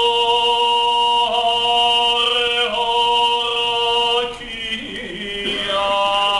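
A solo male voice chanting in long, held notes that step to a new pitch every second or so. Past the middle it drops quieter with a wavering, lower line, then rises again near the end.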